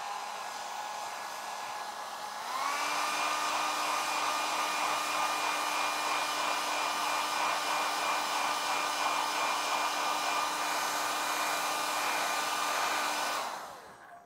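Hand-held hair dryer blowing with a motor whine. It steps up to a higher, louder speed about two and a half seconds in, then is switched off near the end and the sound dies away.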